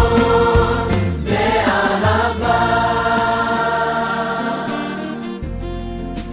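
Music: a choir singing long held notes over an instrumental backing.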